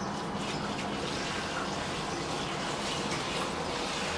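Kitchen tap water running steadily into a stainless steel sink while a plate is rinsed under it by hand.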